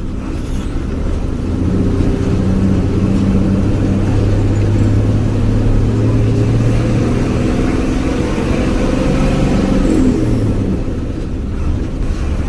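Jaya Guna HG bus engine heard from inside the bus while under way, a deep steady drone that the uploader calls snoring (ngorok). Its pitch climbs slowly, then drops suddenly about ten seconds in, as on a gear change.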